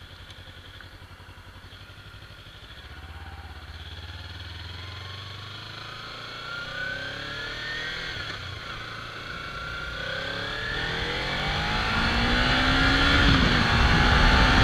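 Kawasaki Ninja 300's parallel-twin engine running low and steady, then pulling away and accelerating through the gears: its pitch climbs, drops at a shift about eight seconds in, and climbs again. Rushing wind on the microphone grows louder toward the end.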